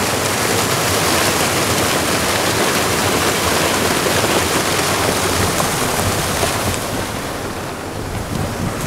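Sea surf surging and churning white foam over rocks below, a steady loud rushing wash, with wind buffeting the microphone. The higher hiss of the rushing eases about seven seconds in.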